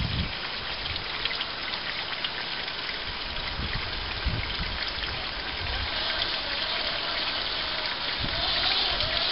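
Home-built 6x6 RC truck on Clod axles with two 55-turn crawler motors, driving: a steady hiss of motor and gear noise with a faint wavering whine that comes in about six seconds in and grows louder as the truck nears. A bump sounds at the very start.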